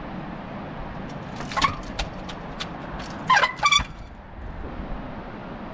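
Trials bike being hopped up wet boulders: the brakes give short, loud squeals, twice a little past the middle and once more faintly earlier, with sharp knocks of tyres on rock, over a steady rush of wind.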